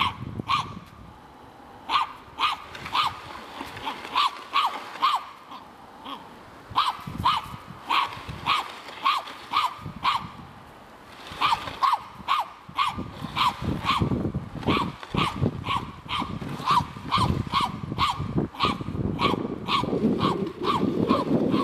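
Norfolk terrier barking at a dummy figure, in runs of short, high-pitched barks about two a second, with brief pauses between runs. Wind rushes on the microphone in the second half.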